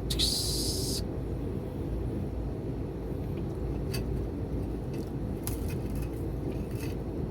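A few short crisp crunches of chewing crispy deep-fried pork over a steady low background hum, with a brief hiss in the first second.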